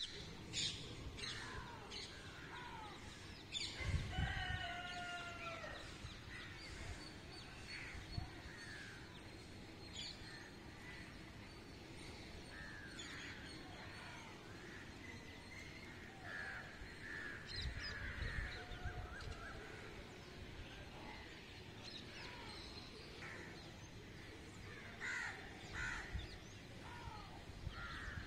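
Birds calling over a steady outdoor hush: crows cawing, loudest in a short run of repeated caws about four seconds in, with many short chirps from smaller birds scattered throughout. A couple of low rumbles come and go, about four and eighteen seconds in.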